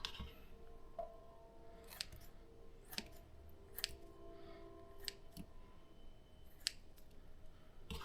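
Shrimp being cut up into small pieces: faint, sharp cuts at irregular intervals, roughly one a second.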